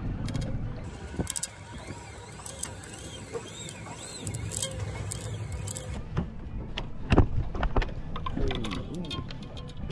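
Clicks and knocks of heavy game-fishing tackle and gear on a small boat while a hooked fish is played, with some short high squeaks in the middle and one loud knock about seven seconds in.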